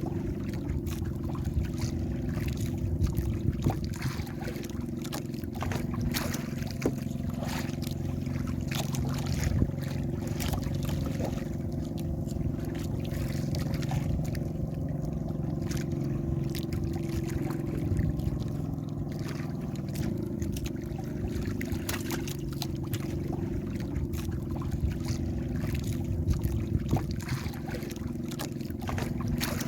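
Small fishing boat's engine running steadily, with scattered knocks and splashes of water against the hull.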